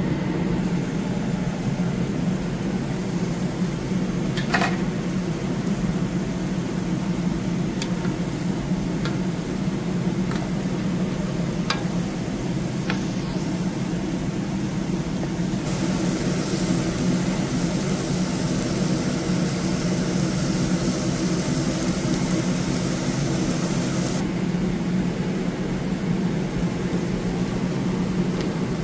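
Steady motor hum with a few light clicks. A hiss starts about halfway through, runs for some eight seconds and cuts off suddenly.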